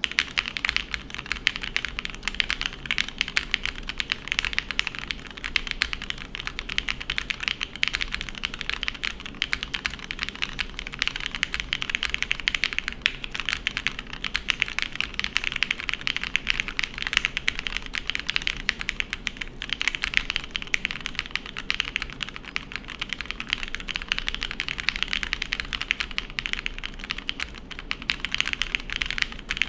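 Continuous fast typing on a mechanical keyboard with linear Cherry MX Black switches, lubed and broken in, on a full aluminium plate with GMK keycaps and no dampening: a dense stream of clacks with no pauses.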